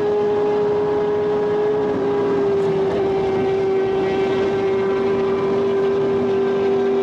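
Audi R8 V10 with an aftermarket exhaust and ECU tune, running hard at around 250 km/h and heard from inside the cabin: a steady engine drone over wind and road noise, dipping slightly in pitch about two seconds in.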